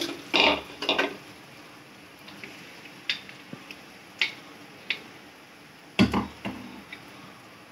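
Steel mixer jar clinking and knocking against a steel kadai, with a spoon scraping, as ground chilli masala is emptied onto fried onions. A handful of sharp clinks, the loudest about half a second in and again about six seconds in.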